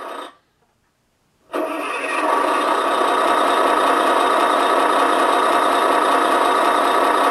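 Electronic engine sound effect from the 2019 Hess toy tow truck's built-in sound chip, set off by a button on its roof: after a moment of silence, an engine starts about a second and a half in and then runs steadily.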